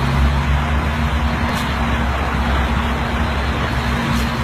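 Snow loader's diesel engine running steadily under load as its gathering arms and conveyor feed snow into a dump truck: a steady low hum with a rush of mechanical noise over it.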